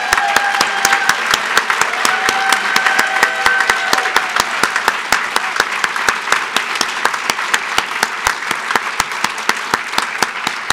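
An audience applauding, with one nearby person's claps standing out sharp and regular at about five a second. A few long held whoops rise over the clapping in the first four seconds.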